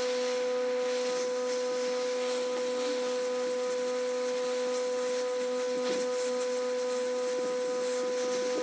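Hot air rework station blowing steadily over a surface-mount chip: an even rush of air with a constant whine from its fan, heating the solder so the chip reflows onto its fluxed pads.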